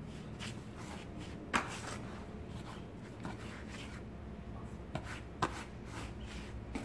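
A hand stirring and raking through dry powdered homemade laundry soap (grated bar soap blended with baking soda) in a plastic tub: a soft rustle, with sharp clicks twice.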